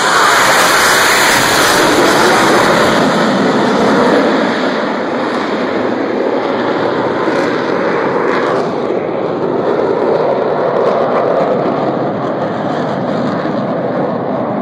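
Jet engine noise from four Blue Angels F/A-18 Hornets passing overhead in diamond formation. It is loudest in the first few seconds, then eases into a steady, slightly fainter rumble as the formation flies off.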